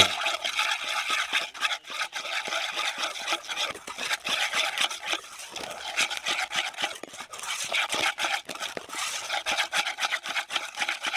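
Wire balloon whisk beating a thick egg-and-flour batter in a metal bowl: quick, rhythmic scraping strokes of the wires against the bowl and through the batter.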